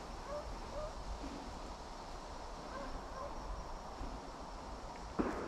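Distant deer hounds baying on a deer's track, short calls in two bursts, over steady wind. A single sharp crack sounds about five seconds in.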